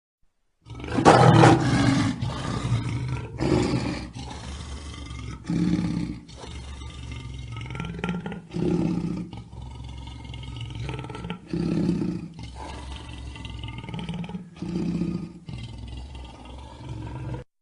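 Lion roaring: a loud full roar begins about a second in, followed by a series of shorter roars spaced a few seconds apart, cutting off abruptly just before the end.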